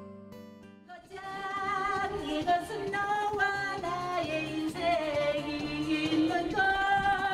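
A brief bit of acoustic guitar music, then about a second in a woman starts singing into a hand microphone over backing music, her held notes wavering.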